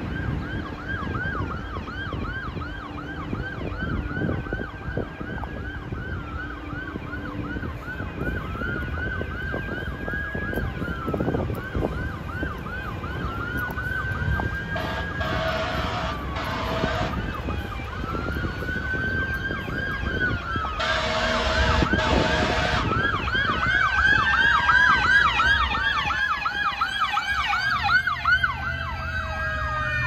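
Emergency vehicle sirens alternating between a slow rising and falling wail and a fast yelp. Two double blasts of a fire engine's air horn sound about 15 and 21 seconds in. Near the end a second, lower siren rises and then falls slowly in pitch as the fire engine approaches.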